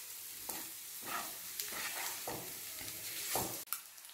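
Sliced boiled eggs and onion masala sizzling in a nonstick frying pan while a spatula stirs and scrapes them, several scraping strokes over a steady frying hiss. The sound drops low near the end.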